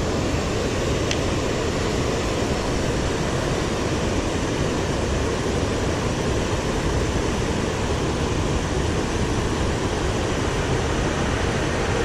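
River water rushing steadily over rocky rapids, an even, unbroken rush.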